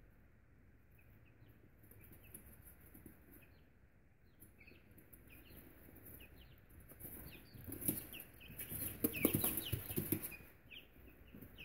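Almost-three-week-old Buff Orpington chicks peeping in short, scattered chirps. Between about eight and ten seconds in there are louder rustles and knocks.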